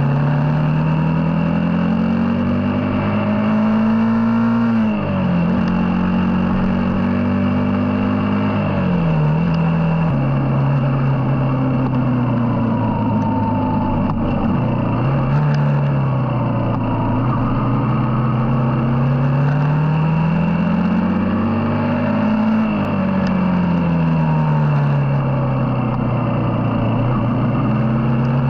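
Yamaha XTZ125's single-cylinder four-stroke engine, with a replacement muffler, heard from on the bike while riding. Its pitch climbs and drops sharply at gear changes about five and nine seconds in, then rises and falls slowly with road speed.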